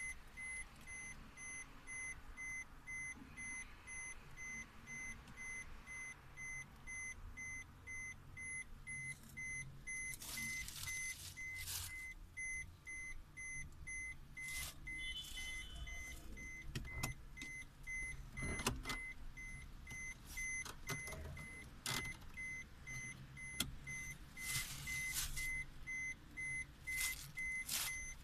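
A Suzuki Vitara's electronic warning beeper sounds a steady run of short, evenly spaced high beeps over a low hum. Scattered rustles and clicks come from handling inside the cabin.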